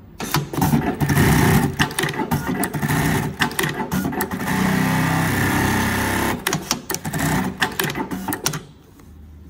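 QURIS automatic label sewing machine running: rapid stitching clatter with sharp mechanical clicks and a steadier stretch in the middle, stopping near the end.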